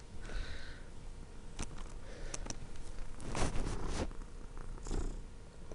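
Soft rustling with scattered small clicks, and a longer, louder rustle about three and a half seconds in.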